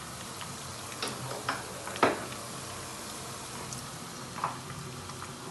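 A wooden spoon stirring thick hareesa in a large aluminium pot, knocking against the pot a few times, loudest about two seconds in, over the steady hiss of kebabs frying in a pan alongside.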